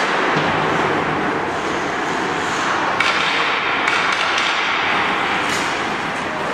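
Ice-hockey skates scraping and hissing on the rink ice, with two sharp clacks about three and four seconds in.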